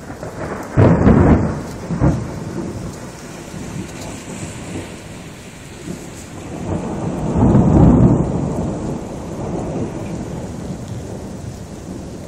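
Thunder over steady rain: a sharp, loud clap about a second in with a second crack just after, then a long rumble that builds from about six seconds, peaks near eight and slowly dies away.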